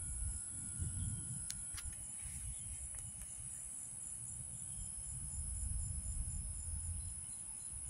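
Steady high-pitched chorus of crickets over an uneven low rumble, with two sharp clicks about a second and a half in.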